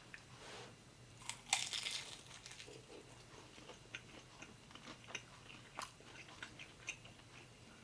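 A person biting into a crisp pan-fried gyoza wrapper wrapped around a sausage, then chewing it with small crunches and mouth clicks. The loudest crunch comes about a second and a half in.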